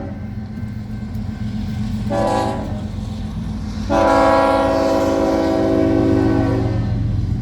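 Union Pacific freight locomotive's air horn sounding for a grade crossing: a shorter blast about two seconds in, then a louder long blast from about four seconds that stops shortly before the end, over the steady low rumble of the passing train.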